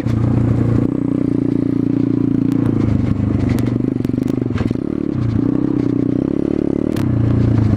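Pit bike's single-cylinder engine running under way, the revs dropping and picking up again a few times, with scattered short clicks and rattles over it.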